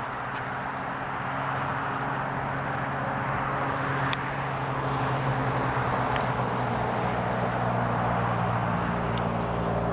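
A motor vehicle's engine running steadily, a low even hum that slowly grows a little louder, with a few faint clicks.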